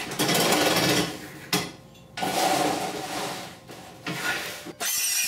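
Cordless circular saw cutting across a vinyl siding panel on a guided saw-table rail. It sounds in two runs, with a short break about a second and a half in.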